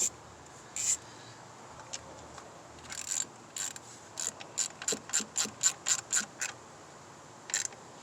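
Hand ratchet clicking as it tightens the hold-down bolt of a replacement ignition coil: a few scattered clicks, then a quicker even run of about four or five clicks a second in the second half.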